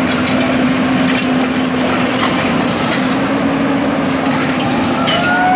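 Diesel engine of a Hyundai 220L crawler excavator running steadily under load. Its drone rises slightly in pitch about three seconds in, with scattered metallic clicks and rattles over it.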